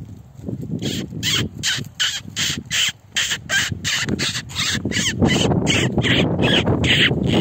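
A predator call sounded to lure wolves: a rapid string of short raspy calls, about four a second. A low rumble joins about five seconds in.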